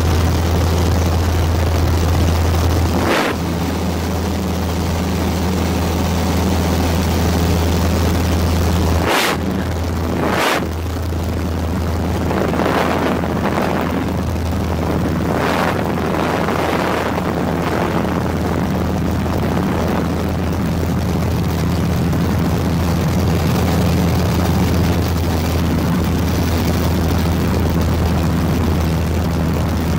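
Steady drone of an aircraft's engine heard from inside the cabin, with a deep, even hum. Brief sharp clicks cut through it about three seconds in and twice more, close together, around nine and ten seconds.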